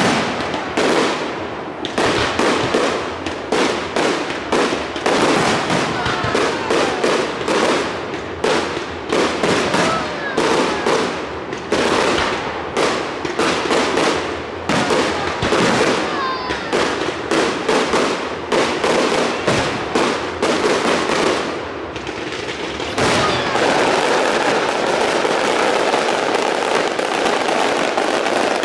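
Fireworks display: aerial shells bursting in quick succession, several bangs a second, giving way about three-quarters of the way through to a dense continuous crackle.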